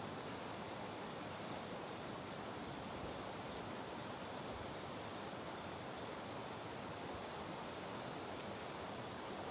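Steady rush of flowing river water, an even noise with no distinct events.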